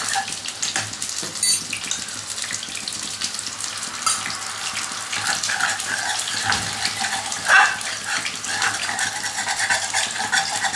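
Sweet-sour orange chicken sauce, thickened with a cornflour slurry, sizzling and bubbling in a non-stick wok over a gas flame while a spoon stirs it, with light scrapes and taps of the spoon on the pan.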